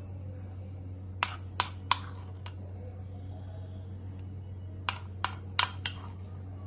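A spoon tapping sharply against a dish while cake batter is poured, in two quick runs of about four taps each, a few seconds apart, over a steady low hum.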